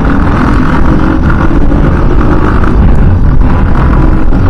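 Steady road noise from riding a two-wheeler through city traffic at about 50–60 km/h: wind on the microphone over running engines.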